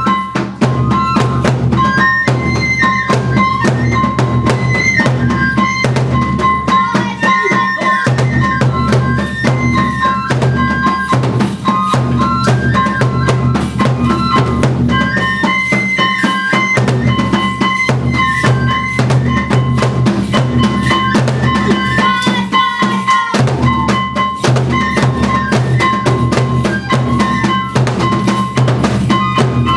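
Kagura accompaniment: taiko drums beaten in a rapid, steady rhythm under a stepping flute melody.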